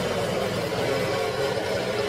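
Pressure washer running and spraying water onto a log: a steady engine drone under the hiss of the spray.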